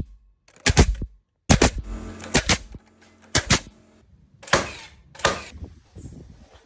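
Heavy hammer blows on oak timber: a run of sharp strikes about once a second, some in quick pairs, stopping about six seconds in.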